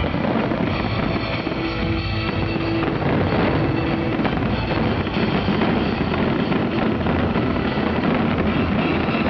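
A fireworks display in a dense, unbroken barrage of bangs and crackling, with a brief held whistle about one to four seconds in.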